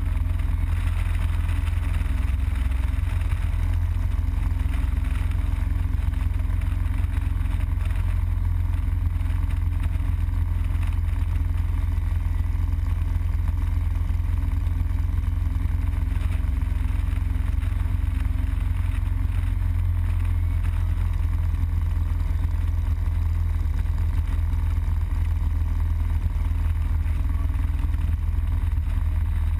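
Harley-Davidson Road Glide Custom's V-twin engine running at a steady highway cruise, a constant low rumble with road and air noise over it.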